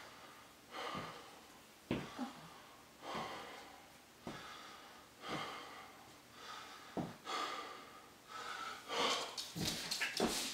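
A man panting hard, about one heavy breath a second, as he recovers between burpees. Near the end, hands and feet thud on the wooden floor as he drops into the next burpee.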